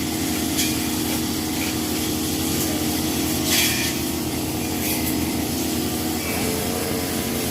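A small engine running at a steady speed, with a brief hiss about three and a half seconds in.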